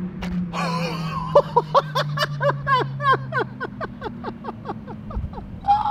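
Twin-turbo Audi R8 V10 Plus engine winding down, its note falling steadily as the car slows after a full-throttle run. Over it comes a burst of laughter, about five short pulses a second, that fades away.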